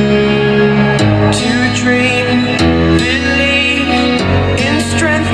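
A song with guitar and a singing voice played loudly through an Xdobo X8 Max 100 W Bluetooth speaker in its default EQ mode, with a strong, steady bass line.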